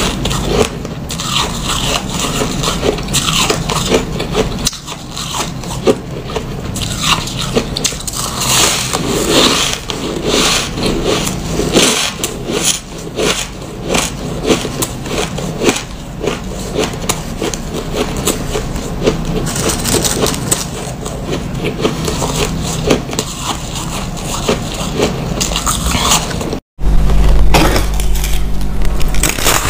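Powdery white ice being bitten and chewed: a dense, crisp crackling crunch of many small snaps. Near the end it cuts out for a moment, then the crunching resumes louder over a low hum.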